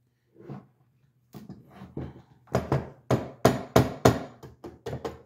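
Quick run of sharp metal knocks, about three a second, starting about halfway in after a couple of faint taps: an AR-10 barrel with its adjustable gas block being banged to knock loose the small detent stuck inside the gas valve.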